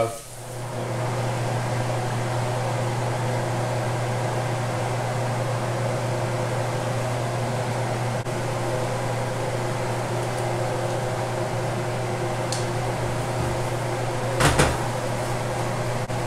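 Steady hum of a kitchen appliance motor, even and unchanging, with a single short knock about fourteen seconds in.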